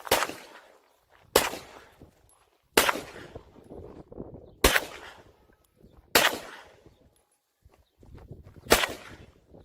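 Glock 34 Gen4 9mm pistol fired six times in slow, unevenly spaced single shots, one every one and a half to two and a half seconds. Each shot has a short echoing tail.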